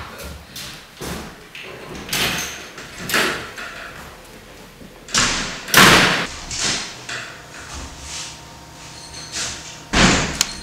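Household knocks and clatters: several separate bangs and thuds, the loudest about six seconds in and another sharp one near the end.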